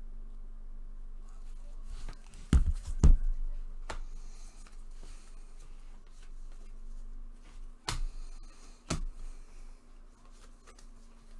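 Trading cards and packs being handled on a table: soft rustling with a few sharp taps, two close together about two and a half seconds in and two more about a second apart later on.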